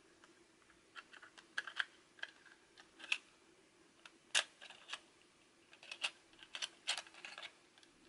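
Fingers tapping and clicking on the plastic of a Sony MiniDisc player and discs: irregular light clicks and taps, sometimes in quick little runs, starting about a second in.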